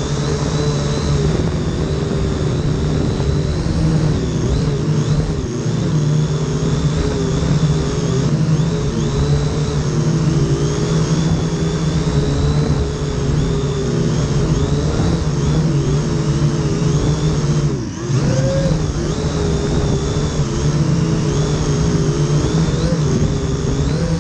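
Huanqi H899b quadcopter's motors and propellers whining up close, the pitch wavering as the throttle shifts, with wind buffeting the microphone. About 18 seconds in, the motors briefly ease off and then climb again.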